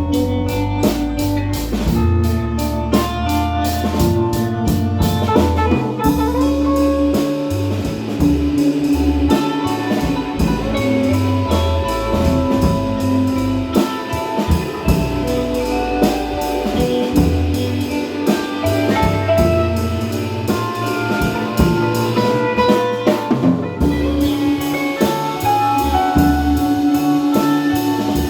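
Band music with drum kit and guitar, in a jazzy style.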